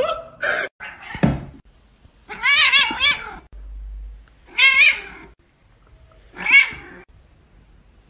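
A domestic cat meowing three times in wavering calls, the first and longest lasting about a second. A couple of short thumps come before the calls, in the first second or so.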